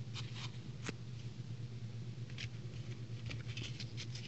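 Hands handling a plastic toy capsule and a rolled paper sticker strip: a few brief rustles, a sharp click about a second in, and more rustling near the end, over a steady low hum.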